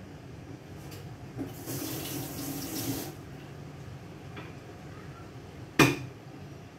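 Kitchen tap running for about a second and a half, then a single sharp knock near the end.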